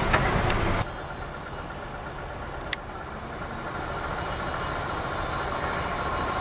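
Loud road and engine noise from a truck passing close by, cutting off abruptly under a second in. A quieter, steady vehicle engine hum with a faint whine follows and slowly grows louder, with a single click near the middle.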